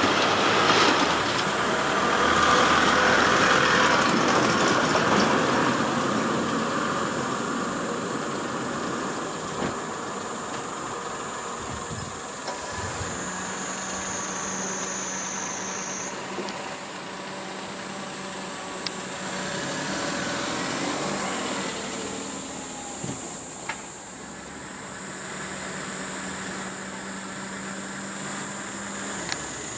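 Motor vehicle noise: a broad rush that swells over the first few seconds and slowly fades, followed by a steady low engine hum, under a constant high-pitched buzz.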